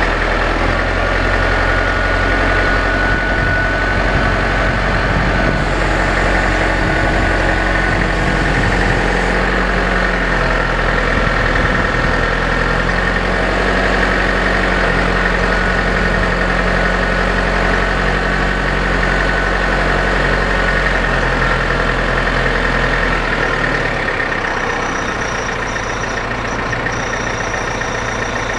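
Massey Ferguson 5600-series tractor's diesel engine running steadily as the tractor drives slowly. About four-fifths of the way through, its low rumble eases and the sound gets a little quieter.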